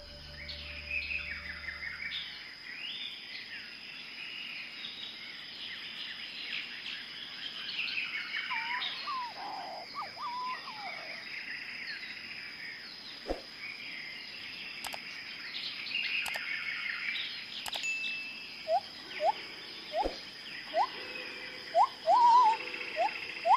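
Several songbirds chirping and singing, over a thin steady high-pitched whine. In the last five seconds a louder, short rising call repeats over and over, each less than a second apart.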